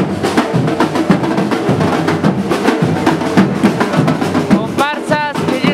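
Batucada drum group playing a dense, steady rhythm on bass and snare drums. A brief high-pitched call rises over the drums near the end.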